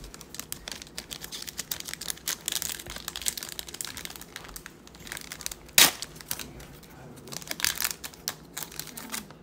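Foil wrapper of a 2020 Panini Playbook football card pack crinkling as it is handled and torn open, with one sharp, loud crackle about six seconds in.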